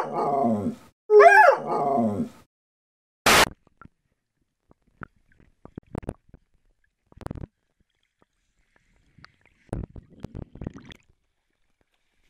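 A Belgian Shepherd Groenendael gives two drawn-out vocal calls, each rising and then falling in pitch, the second about a second long. About three seconds in comes one short, loud rush of noise, followed by scattered faint splashes and knocks in shallow water.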